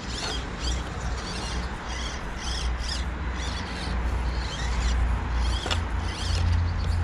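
Small birds chirping in short repeated phrases over a low, uneven rumble that grows louder in the second half.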